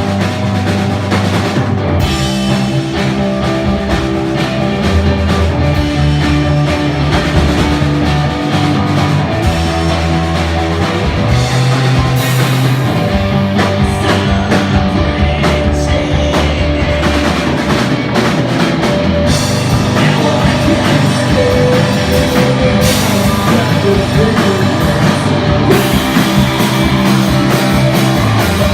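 A rock band playing live with drum kit, guitar and bass, with some singing.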